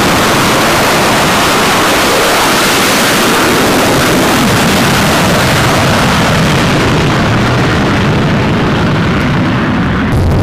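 Twin jet engines of a US Navy F/A-18 at full power during a night catapult launch from a carrier deck: a loud, steady rush of jet noise. The high end fades from about two-thirds of the way in as the jet climbs away, and just before the end a lower, heavier engine noise takes over.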